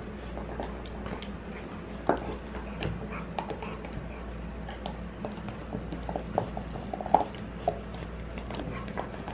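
A pit bull gnawing a hard plastic dog bone chew toy: irregular clicks and scrapes of teeth on the plastic, in uneven spurts, with a steady low hum underneath.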